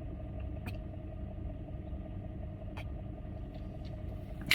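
Car engine idling, a steady low rumble with a faint hum, heard from inside the cabin; a couple of faint clicks.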